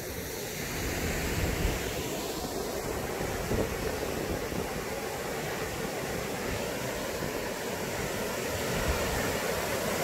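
Steady rush of water from an artificial waterfall, slowly growing louder, with wind buffeting the microphone.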